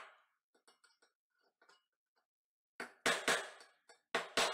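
Claw hammer striking a screwdriver held against a knockout in a steel electrical box: metal-on-metal clinks. A few faint light taps come first, then from just under three seconds in a quick run of about six sharp blows, roughly three a second. The blows are punching out the knockout so that 3/4-inch conduit can enter the box.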